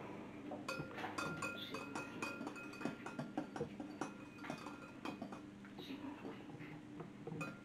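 A metal utensil stirring liquid jello in a glass bowl, making light, irregular clinks and scrapes of metal against glass.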